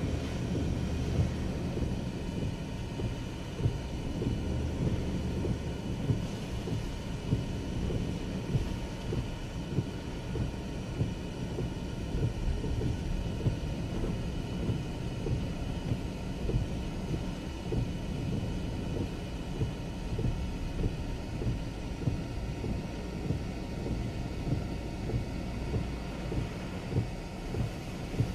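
Hurricane wind and heavy rain buffeting a moving car: a steady low rumble with short thumps about once a second.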